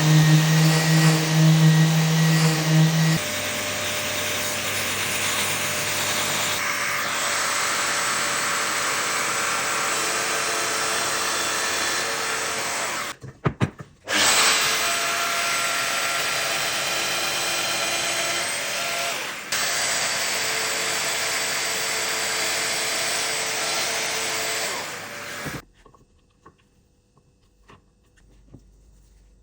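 A woodworking power tool running steadily. It stops briefly about 13 seconds in, starts again, and shuts off about 25 seconds in.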